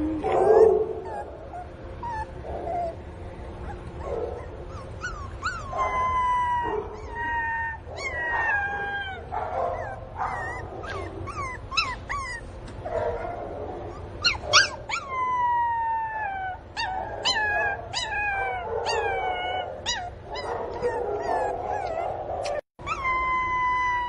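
Pinscher puppy crying: a long run of high whines and yelps, each sliding down in pitch, about one a second, with lower whimpering in the first few seconds. This is the distress crying of a puppy missing its mother.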